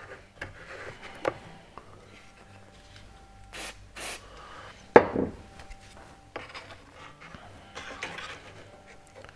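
Two short hisses of Mitre Fix activator sprayed from an aerosol can onto freshly glued joints, about three and a half and four seconds in. Around them are small knocks and rubbing as wooden framing parts and clamps are handled on the bench, and the loudest sound is a single sharp knock about five seconds in.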